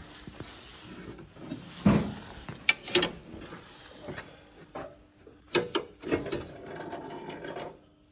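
Handling noises: a dull thump about two seconds in, several sharp clicks, and a rubbing scrape lasting a second or two near the end.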